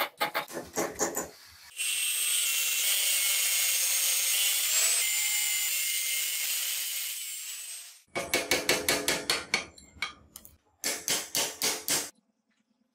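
A quick run of rhythmic hand-tool strokes, about six a second, on a square steel bar. Then an angle grinder cuts a notch into the bar for about six seconds, a steady high whine that winds down near the end. Two more short runs of quick strokes on the steel follow.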